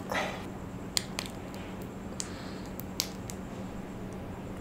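Light handling noises from a cheese sauce container being opened and handled: a short rustle near the start, then several faint clicks and taps.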